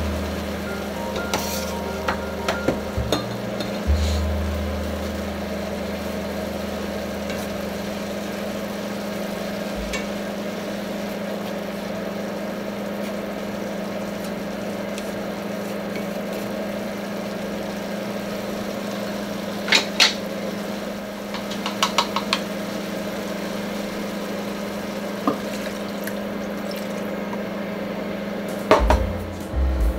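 A steady kitchen hum, with a few short clinks of utensils or lids on cookware about two-thirds of the way in and a louder clatter near the end.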